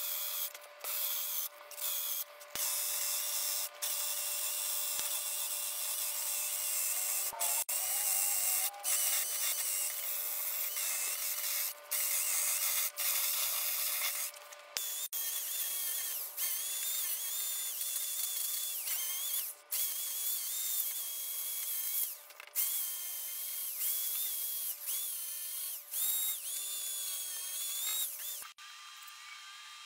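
Handheld power tool working wood, running in stretches broken by many short breaks, its whine dipping and recovering in pitch in the second half as it bears on the wood. It stops near the end, leaving a quieter steady hum.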